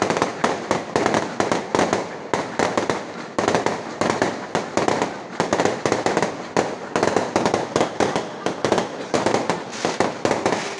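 Fireworks display: a rapid, unbroken string of bangs and crackles from shells bursting overhead, several a second.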